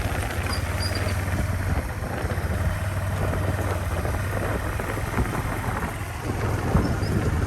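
A small engine running steadily, with a constant low hum under rough, clattery noise.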